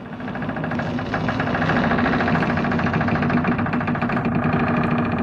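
Horror sound effect: a dense, buzzing drone with a rapid flutter running through it. It swells over the first second or so, then holds steady.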